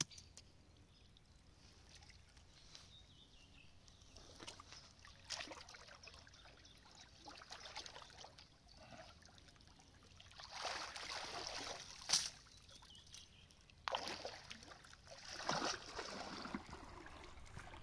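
Pond water sloshing and splashing in irregular swells as a metal garden rake is dragged through the shallows to pull out algae, with one sharp knock about twelve seconds in.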